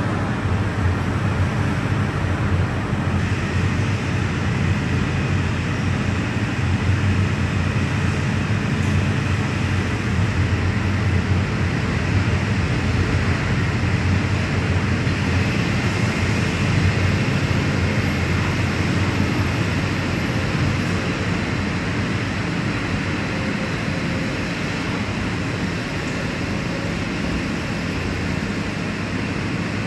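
Steady city traffic noise heard from an elevated metro platform, mixed with the running of Wenhu line rubber-tyred automated trains on the guideway. It is an even, continuous din with a low hum and no single event standing out.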